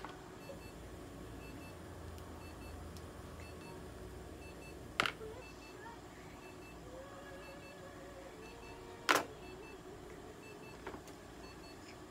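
Steady low hum with faint electronic beeps repeating in quick pairs, broken by two sharp clicks about five seconds in and again about four seconds later.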